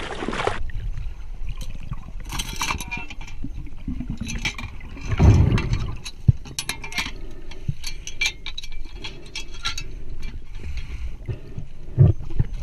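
A swim fin splashes briefly at the surface, then the sound goes muffled as the camera goes underwater in a river: scattered clicks and ticks with a few low thumps, one about five seconds in and another near the end.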